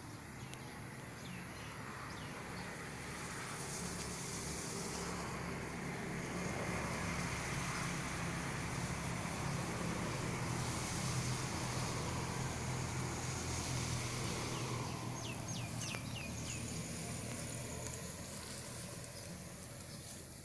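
A motor vehicle's engine running, slowly growing louder to a peak about halfway through and then fading as it passes. Short bird chirps are heard near the start and again near the end.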